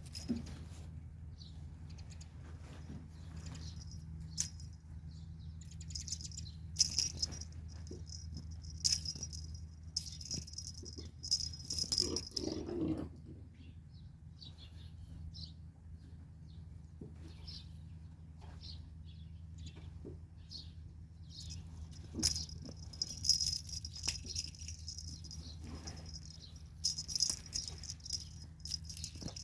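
Cats at play, with a small bell jingling and rattling in short bursts several times over a steady low hum.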